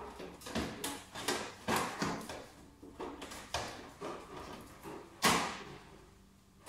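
Side panel of a Soprano laser machine's cabinet being fitted back onto the frame: a series of knocks and clatters as it is pushed into place, the loudest about five seconds in.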